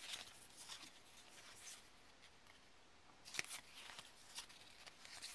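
Faint rustling and flicking of cardboard trading cards being slid past each other by hand, with one sharper snap a little over three seconds in.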